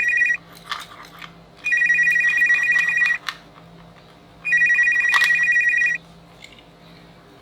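A toy mobile phone's electronic ringtone: a high trilling ring that sounds three times, the first ending just after the start and the next two each lasting about a second and a half, with a few light clicks in the pauses between rings.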